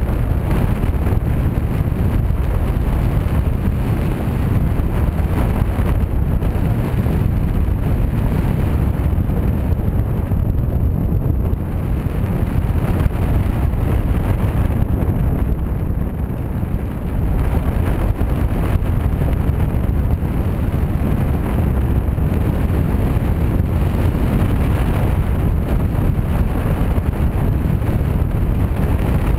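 Wind rushing over the microphone of a camera on a paraglider in flight: steady, loud wind noise, deepest and heaviest in the low end, with no tones or beeps.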